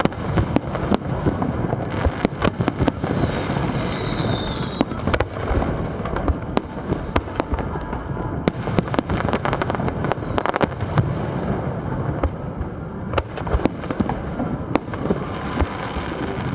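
Aerial fireworks display: a dense, continuous run of bangs and crackling, with a falling hiss about three seconds in.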